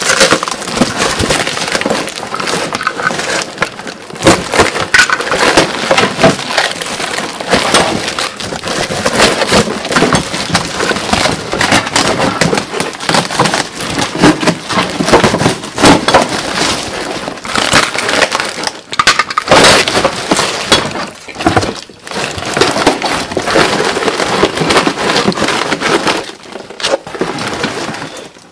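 Cardboard and clear plastic wrapping being torn and pulled off a metal axle assembly: continuous ripping, crackling and crinkling with many sharp cracks and a few short pauses.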